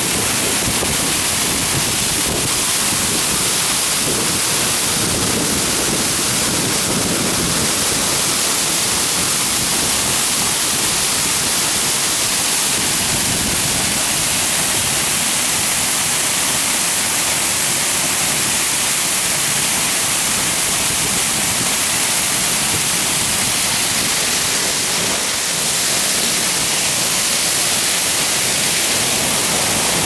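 Waterfall pouring into its rocky plunge pool, heard close to the base: a loud, steady rush of falling water, bright and hissy, with no breaks.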